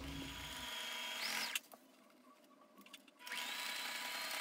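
Electric household sewing machine stitching in two short runs of about a second and a half each, with a pause of nearly two seconds between them.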